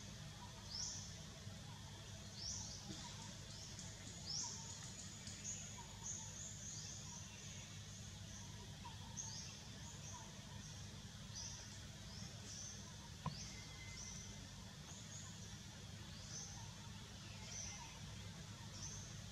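Birds calling in the forest: short, high, rising chirps repeated one or two times a second over a low steady hum, with a single sharp tick about two-thirds of the way through.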